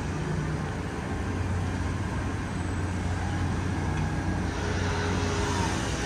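Steady low rumble of city traffic, with an engine's hum underneath.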